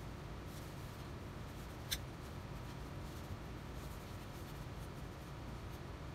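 Hands picking up and handling a metal compass plane on a wooden workbench: light scraping and faint ticks, with one sharp click about two seconds in, over a low steady background hum.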